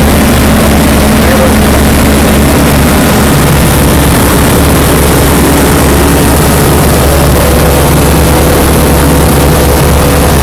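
Tecnam P92 ultralight's engine and propeller heard from inside the cockpit in cruise: a loud, steady drone.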